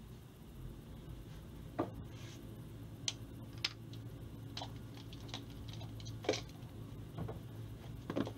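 A few light clicks and knocks, spread irregularly over several seconds, from handling the big-bore air pistol while taking aim, over a low steady hum. The pistol is not fired.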